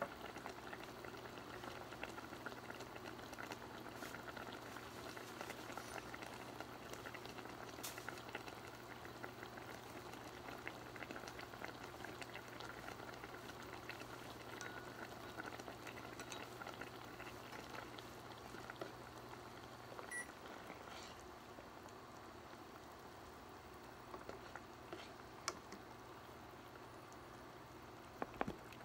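Pot of kimchi hot pot simmering, a faint steady bubbling and crackle. A low steady hum under it stops about two-thirds of the way through.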